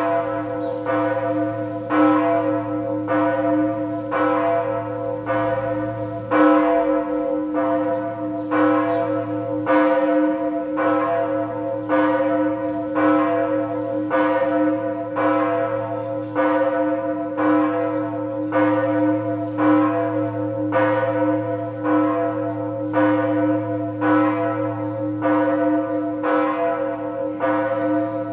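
The Lullusglocke, an eleventh-century church bell, swinging and ringing alone. Its clapper strikes about once a second, each stroke over a steady hum that carries on between the strokes.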